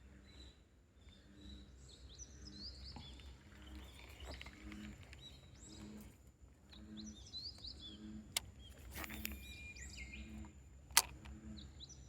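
Small birds singing and chirping, over a low pulsing sound that repeats a little faster than once a second. Two sharp clicks cut through, the louder one near the end.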